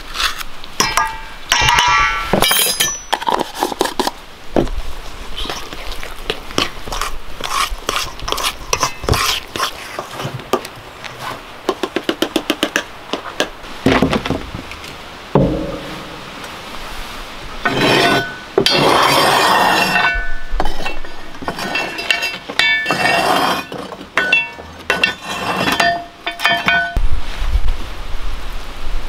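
Metal spoon clinking and scraping against a stainless steel mixing bowl while cornbread batter is stirred, the bowl ringing after some strikes. A rapid run of taps comes about twelve seconds in.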